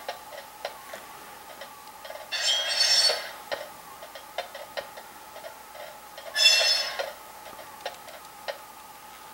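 Sound effects from model railroad DCC sound decoders playing through small onboard speakers as track power comes on. A faint steady hum is broken by scattered light ticks and two short bursts of hiss with a high squeal in them, the first about two and a half seconds in and the second about six and a half seconds in.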